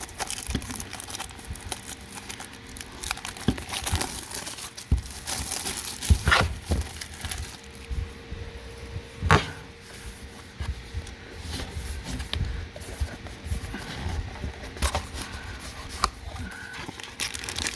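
Plastic shrink-wrap being torn and crinkled off a sealed booster box as it is opened, with irregular crackling and two louder sharp snaps about six and nine seconds in.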